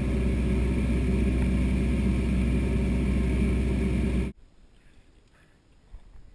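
Floatplane engine and propeller running steadily in flight, a loud even drone that cuts off abruptly about four seconds in, leaving only faint background sound.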